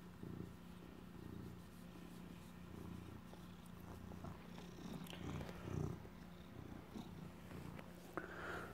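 Domestic cat purring close up, a low rumble rising and falling in a steady rhythm, with a few soft clicks and rustles.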